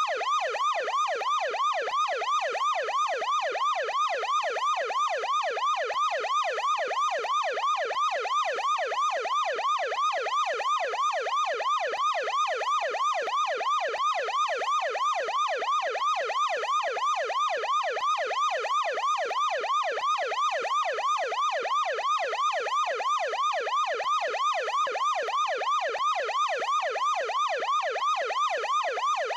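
Ambulance siren in yelp mode: a fast, even warble of pitch sweeps, each rising and falling, repeating steadily without a break.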